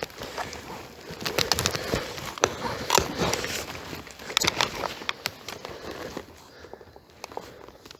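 Irregular crackling and rustling of footsteps and gear pushing through forest undergrowth, dry leaves and twigs, thinning out near the end.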